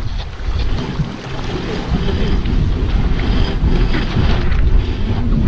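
Wind buffeting the microphone over the hiss of water rushing past the hull of a Sun Odyssey 33.1 sailing yacht under way in a choppy sea.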